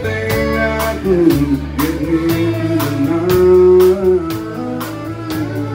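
Live country band playing: a man singing over strummed acoustic guitar and fiddle, with a steady drum beat.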